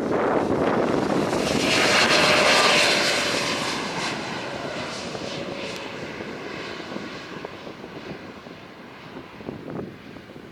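Airliner's engines as it flies past: a rushing roar with a faint whine that swells to its loudest about two to three seconds in, then fades away.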